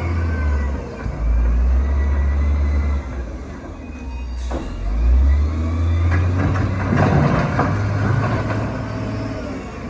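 Shantui D31P bulldozer's diesel engine working under load, its pitch rising and falling as it pushes, with a burst of rattling and clanking about six to eight seconds in and an abrupt break about halfway through.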